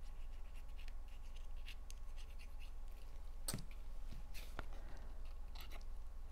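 Light rustling and scraping of cardstock pieces being handled on a work surface, with a few small ticks and taps, over a steady low hum.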